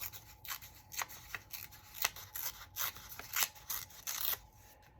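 Scissors snipping through paper in a string of short, sharp cuts, about two a second.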